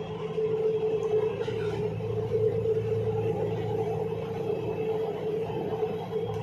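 Metro train running steadily along the track, heard from inside the front cab: a steady motor whine over a low rumble.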